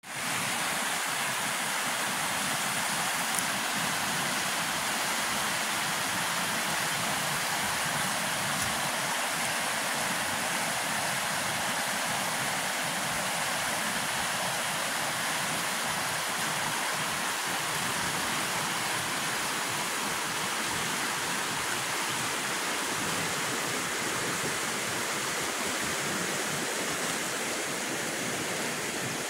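A creek in flood stage after days of rain: fast floodwater rushing and churning around tree trunks, a steady, even rush of water.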